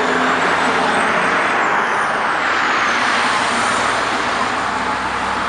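Steady roar of heavy expressway traffic, engines and tyres together, with a faint high whine falling in pitch about two seconds in.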